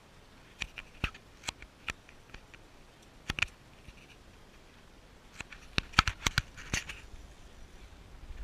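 Irregular sharp clicks and knocks: a few about a second in, a pair around three and a half seconds in, and a louder, denser cluster around six seconds in.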